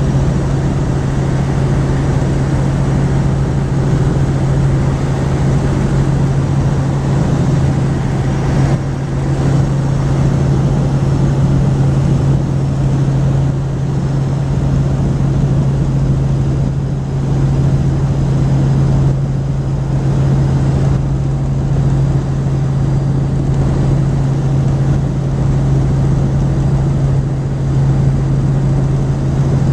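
Helicopter in steady cruising flight: engine and rotor noise running loud and unchanging, a strong steady low hum over a wide rushing noise.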